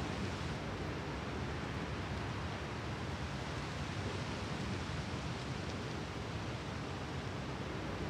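Seashore surf: a steady, even wash of water with no separate wave breaks standing out.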